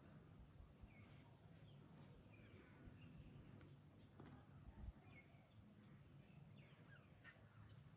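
Near silence: a faint, steady high-pitched insect drone, with faint short bird chirps now and then.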